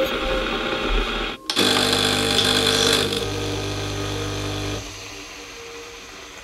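Pod coffee machine's pump running with a steady hum as it pushes hot water through the pod into the cup. The hum starts about a second and a half in and stops abruptly about three seconds later.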